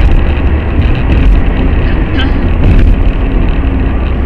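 Steady road and engine noise of a car driving at speed on a highway, heard from inside the cabin, with a strong deep rumble.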